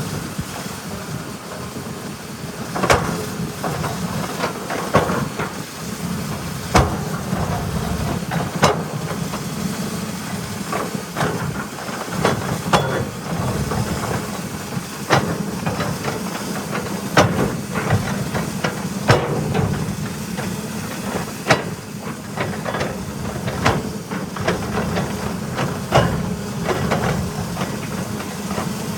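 Caterpillar 320E excavator's diesel engine running steadily under load, with sharp clanks and knocks every second or two from the machine at work.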